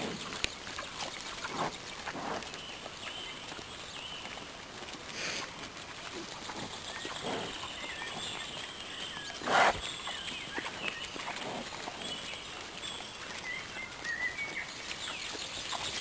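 Wild boars and piglets grunting as they feed, in short scattered calls, with one louder, harsher burst about ten seconds in.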